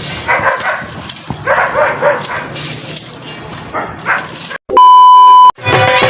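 An animal's short, repeated calls come in uneven bursts. About three-quarters of the way through they break off for a loud, steady electronic beep lasting under a second, and music with drums starts near the end.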